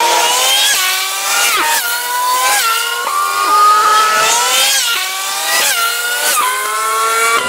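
GT3 race car engines at high revs. The pitch climbs and then drops sharply about once a second, over and over, as gears change.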